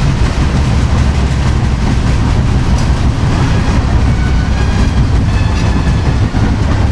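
Loud, steady rush and rumble of two trains crossing at speed. The coaches of a Humsafar Express are running past close alongside, heard from the open door of a moving Indian Railways coach.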